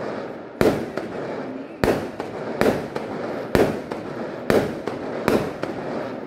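Aerial fireworks bursting overhead: a sharp bang roughly once a second, about six in all, each trailing off before the next.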